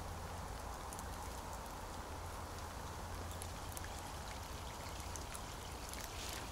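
Light rain falling, an even hiss with scattered faint drip ticks over a steady low rumble.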